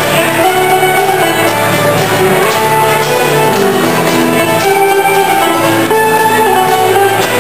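Live ceilidh band playing a dance tune for a barn dance, fiddles carrying the melody over strummed guitar.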